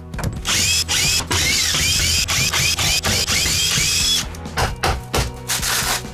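Power drill running for about four seconds with a wavering whine, then stopping, followed by a few short knocks.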